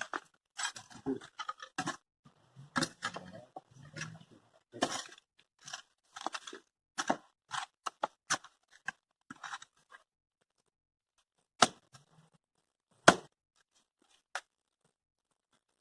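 Old dry wood and debris being pulled loose and handled, crunching and cracking: a dense run of short crackles for about ten seconds, then three separate sharp cracks.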